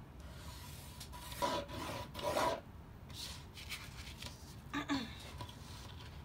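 Black felt-tip marker drawn along a ruler on brown paper: two scratchy strokes, the first about a second and a half in and the second about a second later, with fainter rubbing after. A brief scrape comes near the end.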